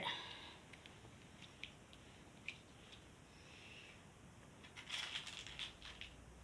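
Slime being handled: faint scattered clicks and crackles, with a denser run of crackling about five seconds in.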